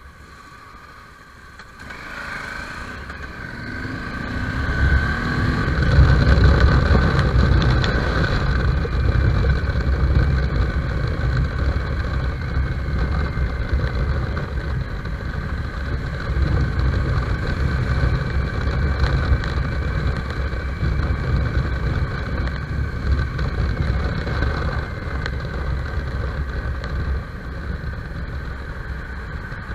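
Motorcycle engine heard from the rider's seat: quiet at first, then pulling away about two seconds in and accelerating. It then cruises steadily, with heavy wind rush on the microphone.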